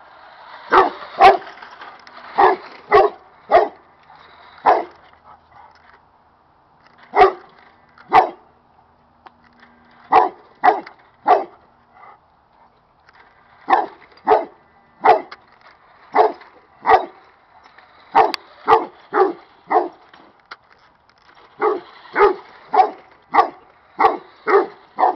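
A dog barking over and over in short, loud barks, excited by a remote-control car. The barks come in quick runs of two to six, with two short pauses, and the runs grow faster near the end.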